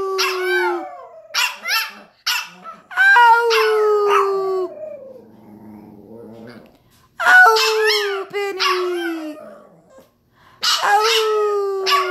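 Small dog howling in repeated bouts, each a held, slightly falling note with wavering higher cries over it, broken by short pauses.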